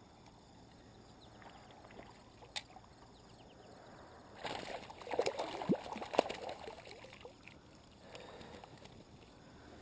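Hooked mooneye splashing at the surface and being scooped into a landing net: water sloshing with a few sharp clicks, loudest a little after halfway through. Before that there is only faint lapping water.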